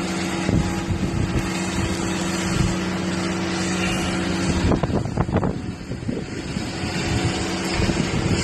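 Blizzard wind rushing over the microphone with a steady low mechanical hum under it. The hum drops out just before five seconds in, during a brief cluster of knocks, and comes back faintly near the end.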